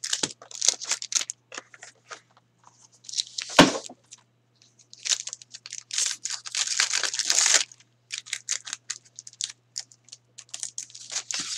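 A hockey card pack being torn open and its wrapper crinkled, with many short rustles and clicks and a longer stretch of crinkling in the middle. A single sharp thump about three and a half seconds in.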